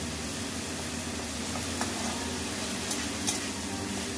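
Onion, garlic and ginger paste sizzling steadily in hot oil in a kadai, with a few light scrapes and taps of a metal spatula as it is stirred.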